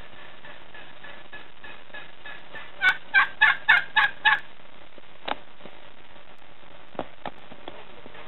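Domestic turkey tom gobbling: one rapid run of about seven notes lasting a second and a half, about three seconds in. A few faint clicks follow.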